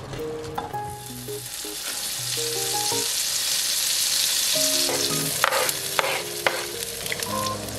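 Butter sizzling as it melts in a hot wok. A little past halfway, a few sharp clicks as sliced green onions are scraped off a wooden cutting board into the pan, and the sizzle carries on.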